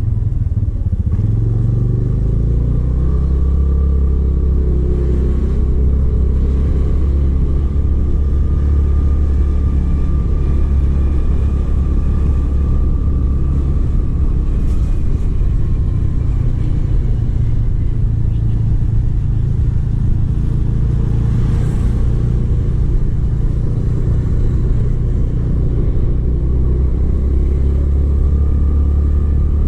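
A vehicle running at a steady cruising speed, heard mostly as a heavy, even low rumble of wind on the microphone, with a faint engine whine that wavers a little in pitch.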